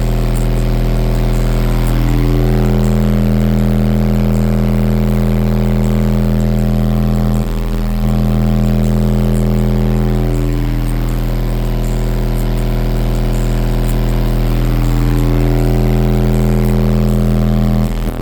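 Resilient Sounds car audio system playing bass-heavy music very loud, long deep bass notes that change every few seconds, with a short break about seven and a half seconds in.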